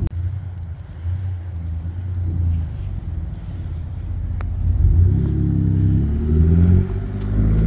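Lifted Ford F-150 pickup's engine running under load in deep snow, a steady low rumble that revs higher and louder from about five seconds in. A single sharp click is heard shortly before the revving.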